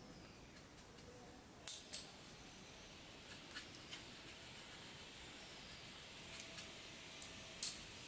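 Sharp plastic clicks and light taps as a slim tool is worked along the seam of a laptop's plastic bottom panel: two loud clicks a little under two seconds in, a scatter of small ticks, and another loud click near the end.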